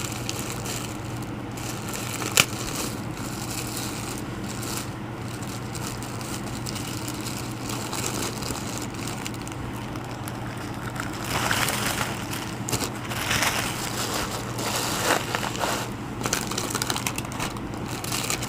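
Plastic packaging crinkling and rustling as it is handled, busier from about 11 seconds in, with one sharp click a little after 2 seconds, over a steady low hum.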